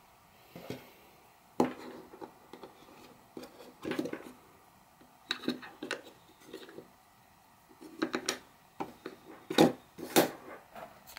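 Anker Soundcore Life P2 plastic earbud charging case being handled on a wooden desk: scattered clicks and knocks as its lid is opened and closed and the case is picked up, the two loudest knocks near the end.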